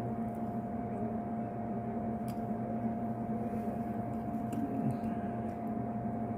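A steady electrical hum holding one constant tone, with a few faint light clicks of small tools being handled on the bench.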